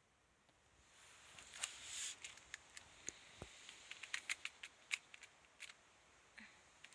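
Soft rustling with an irregular run of small, sharp clicks and ticks, starting about a second in.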